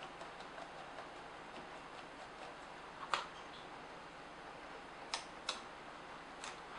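Faint ticks and clicks of a small screwdriver turning screws in the plastic base of a Nikon SB900 speedlight, with sharper clicks about three seconds in and a pair about five seconds in.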